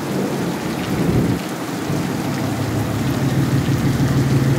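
Heavy rain pouring onto wet pavement, with a lifted pickup truck's engine running low and steady as it rolls slowly past, louder in the second half.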